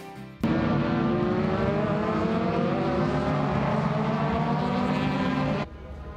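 Ford Mustang race car engine running at low speed, its pitch rising slowly over several seconds. It starts suddenly about half a second in and cuts off near the end.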